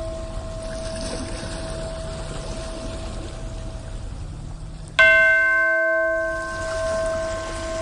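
Steady wash of ocean waves with a faint held ringing tone beneath. About five seconds in, a bell is struck once, the loudest sound, and rings on with several clear overtones that slowly fade.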